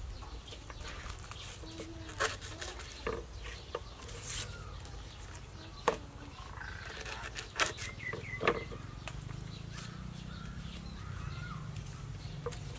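Scattered, irregular knocks and clicks of kitchen work, a knife and utensils handled while lemongrass is prepared, over a low steady hum with faint bird or animal calls.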